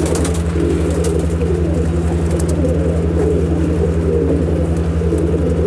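Andhra tippler pigeons cooing, birds kept singly rather than in pairs, over a steady low mechanical hum with an even pulse that is the loudest sound throughout.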